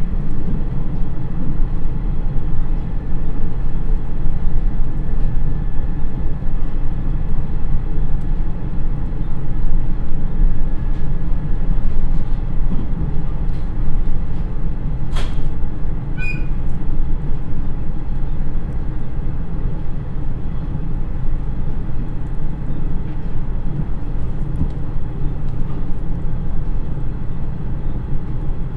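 Running noise of a KiHa 110 diesel railcar heard from inside the car: its turbocharged Niigata DMF13HZA diesel engine and the wheels on the rails, a steady rumble at speed. A single sharp click comes about halfway through.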